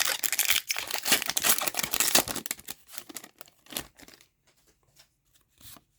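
A hockey card pack's wrapper being torn open and crinkled for about two seconds, then lighter rustling and taps as the cards are handled, fading to faint ticks near the end.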